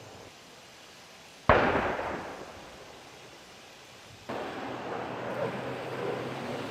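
A single sharp bang about a second and a half in, its echo dying away over about a second. About four seconds in, a steady rumbling noise starts abruptly and carries on.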